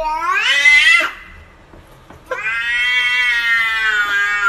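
Domestic cats yowling: a long call that rises in pitch and breaks off about a second in, then, after a short pause, a second long, drawn-out yowl.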